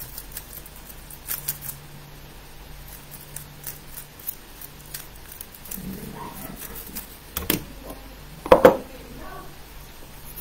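Rapid, irregular plastic clicking of a 3x3 speedcube being turned through a solve, with a louder knock about seven and a half seconds in as the solve ends.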